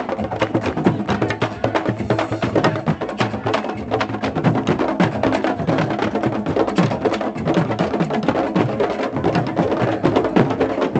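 A street percussion group drumming a busy, continuous rhythm of sharp strikes, with wood-block-like clicks among the drums.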